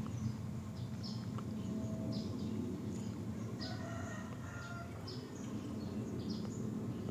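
Quiet background of faint, scattered bird chirps over a low steady hum.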